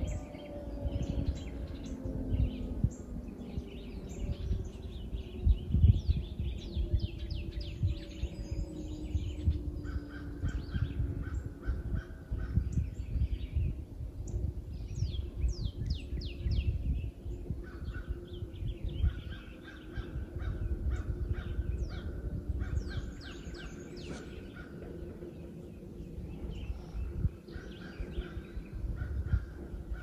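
Federal Signal 2T22 two-tone outdoor warning siren winding down at the end of its monthly test, its two tones sliding slowly lower and fading out. Birds call and chirp throughout over a low, gusty rumble.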